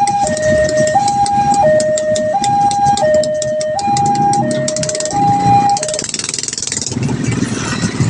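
Railway level-crossing warning siren sounding its two-tone electronic alarm, alternating between a higher and a lower tone about every 0.7 seconds, with rapid clicking over it. The alarm stops about six seconds in, leaving low noise.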